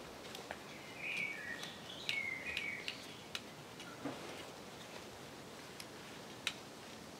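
Scattered light clicks and handling of a tree-climbing harness's straps and buckles, with a few short bird chirps between about one and three seconds in.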